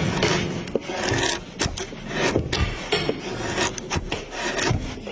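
Hand carving tools working wood: irregular scraping and rasping strokes across the grain, with sharp clicks between them.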